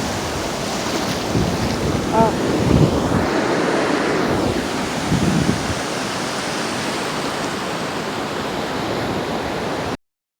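Ocean surf washing onto the beach, a steady rushing, with wind buffeting the microphone in gusts. A brief high call sounds about two seconds in.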